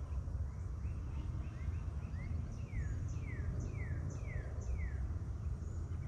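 A bird singing a run of downslurred whistled notes, about two a second, from about two seconds in until near five seconds, over a steady low rumble.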